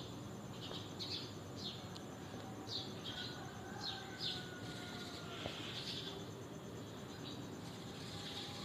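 Small birds chirping in short, high, repeated calls over steady outdoor background noise.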